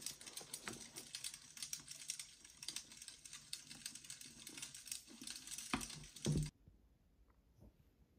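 Paper pages of a hardcover book rustling and crackling as they are turned and the book is handled and closed, with two dull thumps of the book about six seconds in. The sound then cuts off abruptly to near silence.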